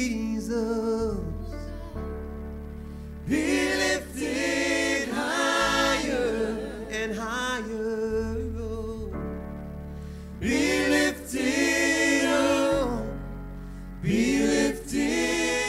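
Live gospel worship music: a man singing into a microphone in phrases of a second or two, with other voices joining, over sustained chords and a steady low bass.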